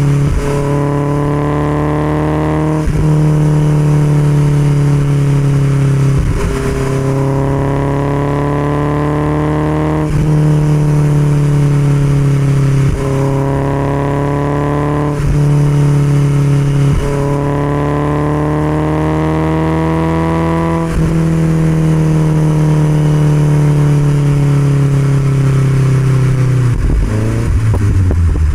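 1969 Alfa Romeo Spider 1750's twin-cam four-cylinder engine running through an Alfaholics exhaust while cruising, its note creeping up and then briefly dipping several times. Near the end the revs fall sharply and then climb again.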